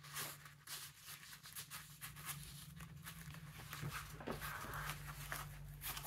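Faint rustling, scraping and light clicks of hands sliding plastic cards into the slots of a nylon trifold wallet and folding it shut, over a low steady hum.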